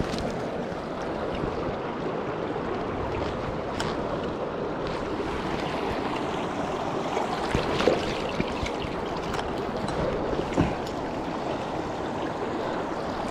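Mountain stream water rushing steadily over rocks, with a few faint short knocks about eight and ten and a half seconds in.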